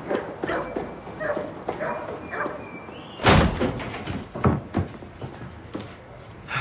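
Hurried footsteps clanging on a metal staircase, each step briefly ringing, then a loud slam about three seconds in followed by two sharper knocks.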